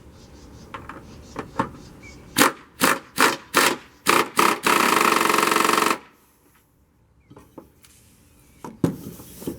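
Tightening the nut on a mower deck's idler pulley: several sharp metal knocks, then just over a second of fast rattling from a power tool running the nut down, which cuts off suddenly.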